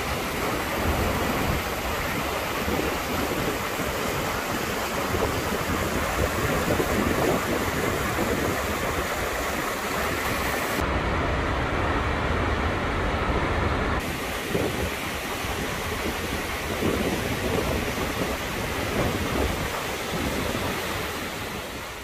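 Steady rushing noise of Takakkaw Falls, a very tall waterfall, crashing onto rock. For a few seconds about halfway through, the sound is duller, with its hiss cut off.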